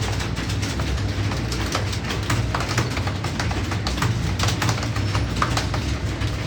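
Several computer keyboards clattering as a room of people type at once: a dense, irregular patter of key clicks over a steady low hum.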